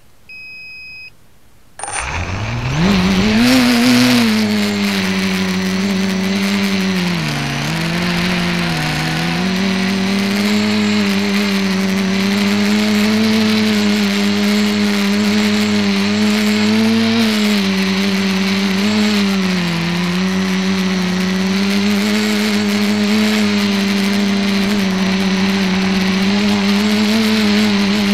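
ETFD2 multicopter's electric motors and propellers, heard from its onboard camera: a single electronic beep, then about two seconds in the motors spin up in a rising whine and settle into a steady hum in flight, with brief dips in pitch as the throttle changes.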